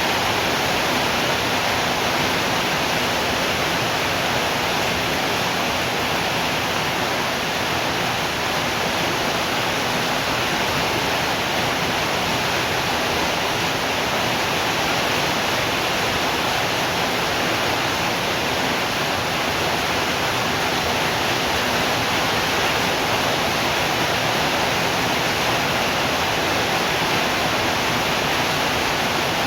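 Steady, heavy rain, an even hiss with no drops or thunder standing out.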